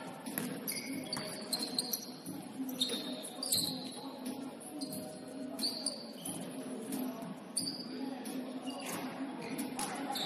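Basketball game play on an indoor court: the ball bouncing in repeated knocks, mixed with short high squeaks of sneakers on the floor.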